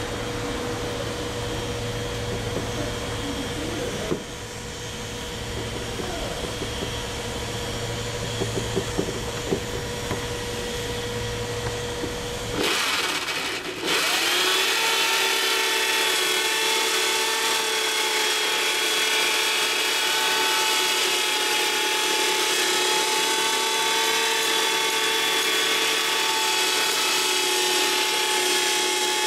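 Electric drill fitted with a rotary bristle blasting disc (Tercoo/Perago type) starting up about 14 seconds in. Its pitch rises quickly, then it runs at a steady speed while it grinds the old epoxy coating off a fibreglass boat hull. Before it starts there is a steady low hum with a few faint clicks.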